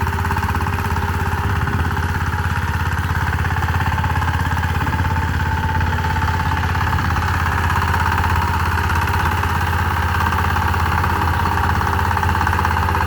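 Power tiller engine running steadily with a rapid, even chugging.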